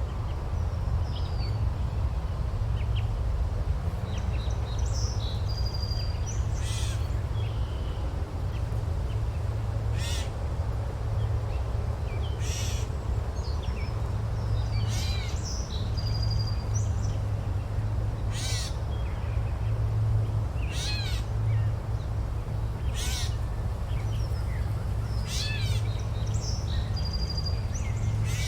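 Forest ambience: birds give short, sharp high calls every two to three seconds, with brief thin whistles between them, over a steady low rumble.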